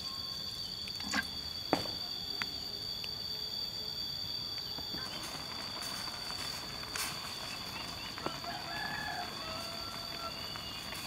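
Steady high drone of forest insects, with two sharp knocks of cooking gear being handled in the first two seconds and a bird calling in the last few seconds.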